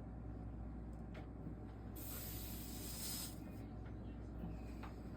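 Soldering iron sizzling on a fluxed solder seam of stained glass: a hiss about a second and a half long, starting about two seconds in, with a couple of faint ticks around it.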